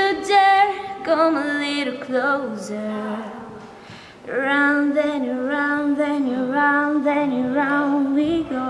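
A young woman singing solo into a handheld microphone: two sung phrases with long held notes and vibrato, and a short pause for breath about four seconds in.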